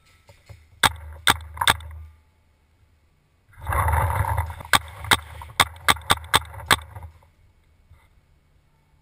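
Paintball marker firing: three quick shots about a second in, then after a pause a rapid string of about eight shots. A short rush of scuffing noise comes just before the second string.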